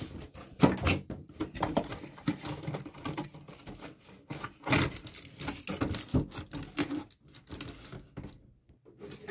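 Hands handling a cardboard box, opening its flaps: an irregular run of taps, scrapes and rustles of cardboard, with a couple of louder knocks about a second in and near the middle.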